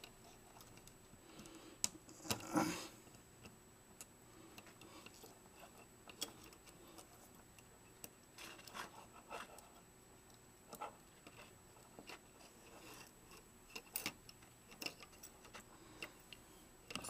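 Faint, scattered small clicks and rustles of fingers untangling and handling the wires on a circuit board from a Vivitar 2800 flash against a wooden tabletop, with a brief cluster of rustling about two and a half seconds in.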